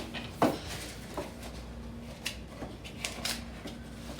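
A few light knocks and clicks, as of small objects being handled, over a faint steady hum.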